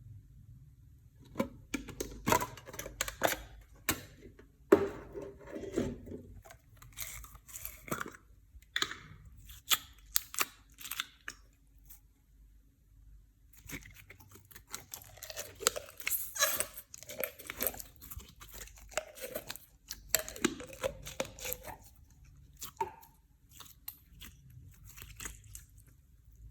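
Clear slime being squished, stretched and mixed by hand, with irregular sticky clicks, pops and crunchy crackles in bursts, pausing briefly about halfway through.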